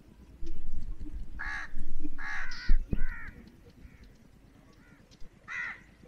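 Crow cawing: three harsh caws in quick succession starting a second or so in, and one more near the end. Under them is a low rumble on the microphone, with a sharp knock near the middle.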